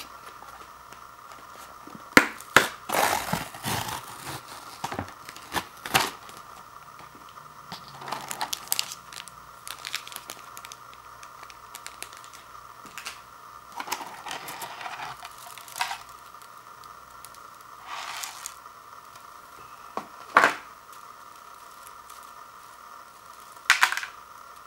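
Paper lid being peeled off an instant noodle bowl, a run of tearing crackles a couple of seconds in. Then scattered crinkles, clicks and short rustles as the packaging and the brittle block of dried rice noodles are handled.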